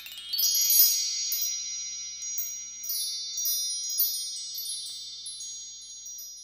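Sparkling chime sound of a title intro: a rising run of high bell-like tones settles into long ringing notes, with new tinkling strikes about every half second, slowly fading.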